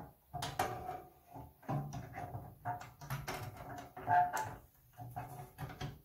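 Irregular clicks, knocks and scrapes as an IBM PC 5150 system board is pressed and slid into its metal case, its plastic standoffs catching in the slots. A short ringing note comes about four seconds in.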